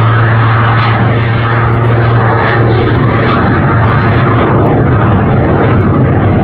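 Jet Waco biplane, with a Pratt & Whitney R-985 radial on a three-bladed propeller plus a CJ610 jet, flying overhead under power. A loud, steady, low propeller drone sits under a wide rushing noise, and the drone eases a little in the second half.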